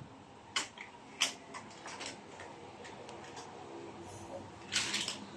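Hot Wheels die-cast toy cars and plastic track pieces clicking and clacking as they are handled and run, a scattered series of sharp clicks with a short rattle near the end.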